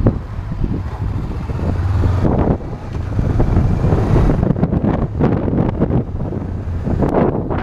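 Wind buffeting the microphone of a helmet-mounted action camera on a moving Honda CBF 500 motorcycle, in uneven gusts, with the parallel-twin engine running low underneath.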